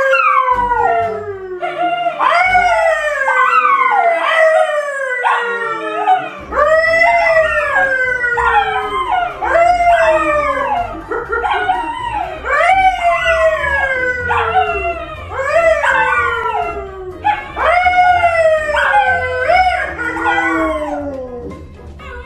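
An animal howling over and over, each call jumping up and then sliding down in pitch, about one a second.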